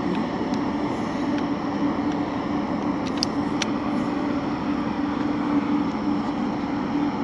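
Steady low mechanical drone with a constant hum, like a distant engine running, with two or three faint clicks about three seconds in.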